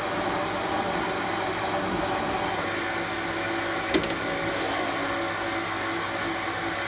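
Metal lathe running steadily, turning down a blank for nuts, with a steady hum and whine. There is one short sharp click about four seconds in.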